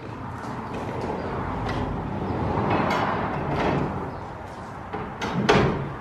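Metal serving hatch of a vintage coffee van being pushed up and set open: knocks and clatter over a steady rushing noise, with a loud bang about five and a half seconds in.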